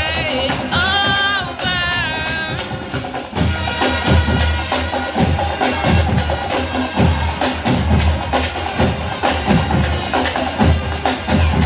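Marching band music: a wavering melodic line for the first two and a half seconds, then the drums take over with a steady beat of bass drum and sharp percussion hits.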